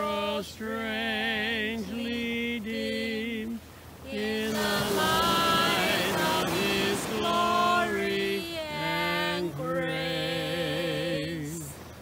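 A woman singing a hymn chorus in Chinese, with no accompaniment, in three phrases with a wide vibrato on the held notes and short breaths between them.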